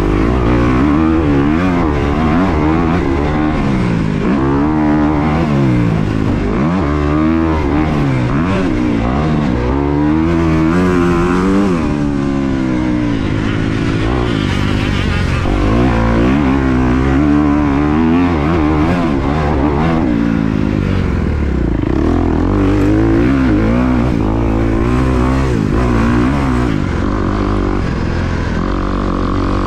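2023 Kawasaki KX250's four-stroke single-cylinder engine being ridden hard, its pitch rising and falling again and again as the rider accelerates and backs off the throttle.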